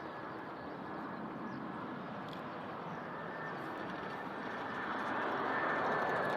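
Boeing 767-300F freighter's twin jet engines on landing approach: a steady rush with a thin high whine, growing louder as the aircraft comes closer.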